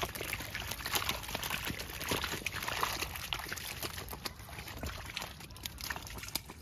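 Small live fish being handled in a wet mesh net at the water's edge: water splashing and trickling, with many short wet slaps and clicks from the fish and the net.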